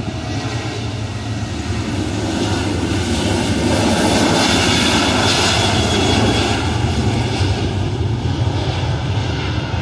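Aircraft engines of a passing airplane, a dense rushing noise that swells to its loudest about halfway through and then fades.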